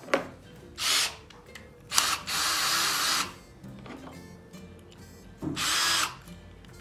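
Parkside PSBSA 20-Li B2 20 V cordless drill motor run unloaded in three bursts: a short one about a second in, a longer one of over a second, and another short one near the end.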